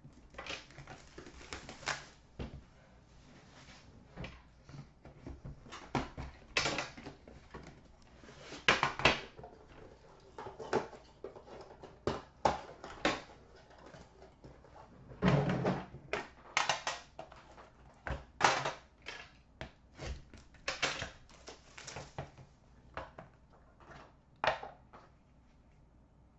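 Shrink-wrap plastic being cut and torn off a hockey card tin, crinkling in irregular bursts, with knocks as the tin, its lid and the inner box are handled; one louder, deeper knock about fifteen seconds in.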